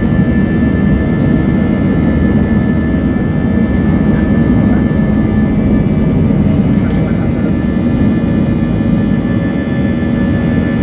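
Steady cabin noise of an Airbus A320's two jet engines running at takeoff power, heard from inside the passenger cabin, with a steady high-pitched tone held above the low drone.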